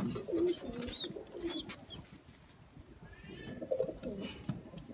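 Pigeons cooing, low wavering coos in the first second or so and again a little after the middle.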